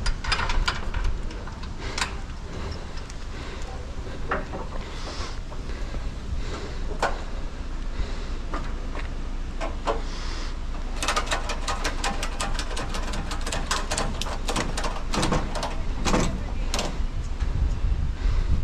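Scrap metal being handled and loaded onto a trailer: scattered metal knocks and clanks, then a dense rattling run of knocks in the second half, over a steady low rumble.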